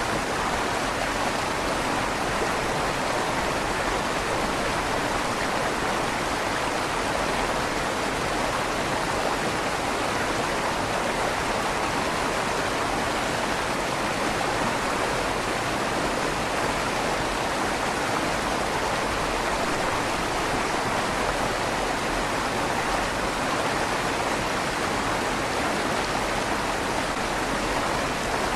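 River water flowing steadily under a stone bridge, an even rushing with a slight echo off the stone tunnel walls.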